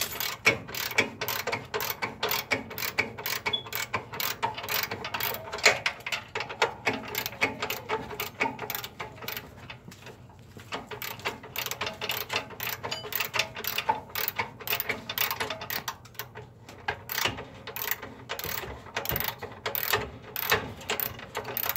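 Hand ratchet wrench clicking in a steady run, about three clicks a second, as it backs out a lower control arm mounting bolt. The clicking pauses briefly about ten seconds in and again near sixteen seconds.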